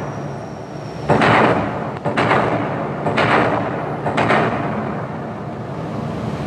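Soundtrack of a promotional video starting: four heavy percussive hits about a second apart, each fading out briefly.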